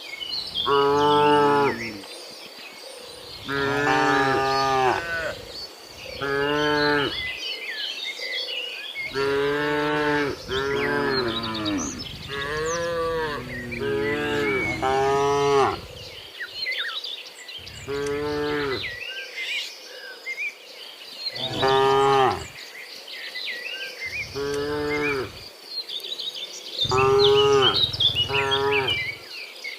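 A herd of cattle mooing: about a dozen drawn-out calls, one after another and sometimes overlapping, at different pitches. High chirping runs faintly behind them.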